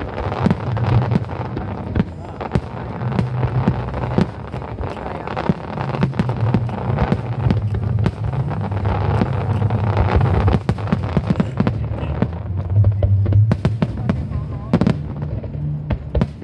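Aerial fireworks bursting in quick succession, a dense run of sharp bangs and crackles, over music with a low bass line played alongside the show.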